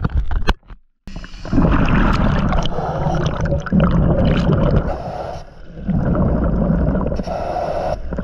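Water splashing as a scuba diver drops off a boat into a river. About a second in the sound turns underwater: a loud muffled rush and gurgle of the diver's scuba breathing bubbles, coming in three long stretches with short lulls.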